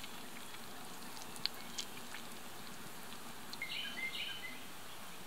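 Faint outdoor ambience with a few sharp clicks in the first two seconds, then a bird chirping a short run of quick notes about halfway through.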